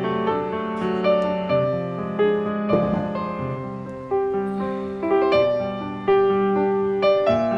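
Background piano music, a steady run of single notes and chords.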